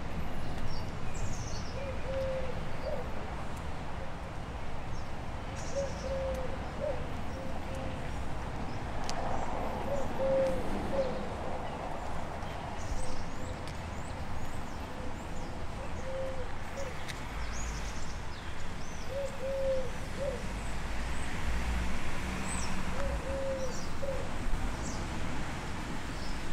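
A dove cooing: a short phrase of a few low notes repeated every three seconds or so, over a steady low rumble and a few faint high chirps of small birds.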